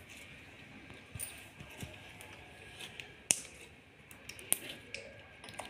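Clear yellow slime being pressed and pulled by hand against a stone countertop, giving scattered sticky clicks and pops. The sharpest comes a little after three seconds and another about four and a half seconds in.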